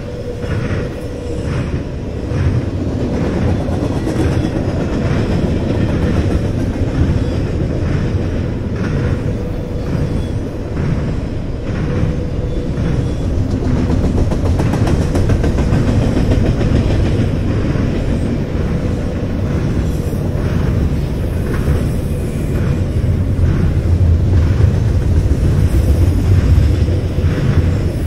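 Freight train of semi trailers on flatcars rolling steadily past, a low rumble with steel wheels clacking over the track, growing louder near the end.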